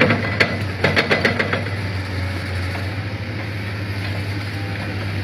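Excavator with a vibratory sheet-pile driver, its engine running with a steady low hum. A quick run of sharp knocks comes in the first second and a half.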